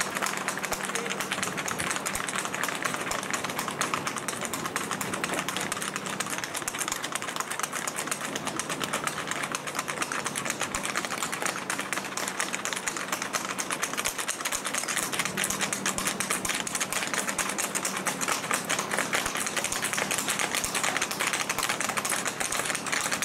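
Rapid, continuous clatter of several horses' hooves on asphalt as they come down the road at a fast four-beat rack.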